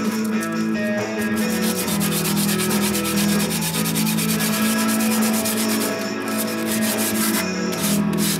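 Soft pastel scratching and rubbing on paper in repeated strokes, over background music with sustained chords.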